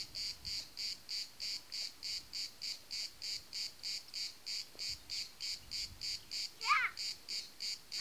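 An insect singing in regular, evenly spaced high pulses, about three a second. A short bird chirp cuts in near the end.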